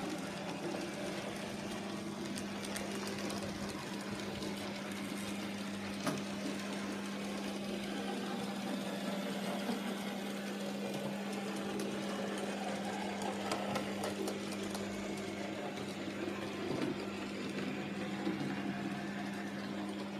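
N gauge Graham Farish model diesel locomotives running with freight wagons: a steady whir of small electric motors and wheels on track, with scattered small clicks and one sharper click about six seconds in.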